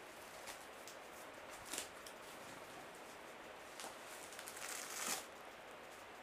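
Cardboard box rustling and scraping as it is opened by hand and a bubble-wrapped package is slid out of it, with light clicks and a longer, louder rustle about five seconds in.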